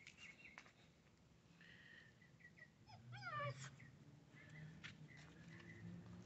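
Belgian Malinois puppy giving a brief, falling whimper about halfway through.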